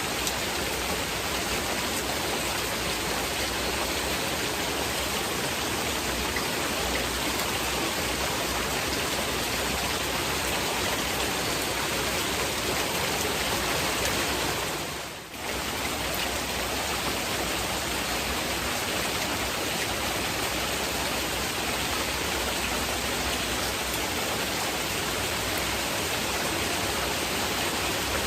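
Steady heavy rain mixed with a masking noise bed, an even rush across the whole range; it drops away briefly about halfway through and comes straight back.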